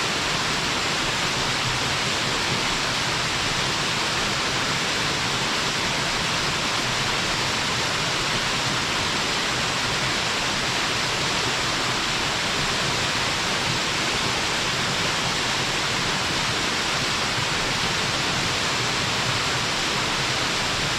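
Waterfall: a small mountain cascade pouring steadily, a constant, even rush of falling water with most of its energy in the mid and upper range.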